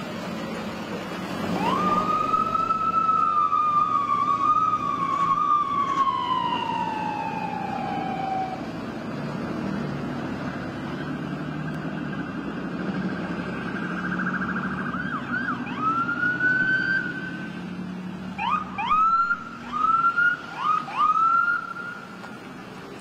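Emergency-vehicle sirens over the steady hum of passing truck engines: one siren rises sharply about two seconds in, then wavers and slowly falls in pitch over about six seconds. Near the end come four short rising whoops in quick succession.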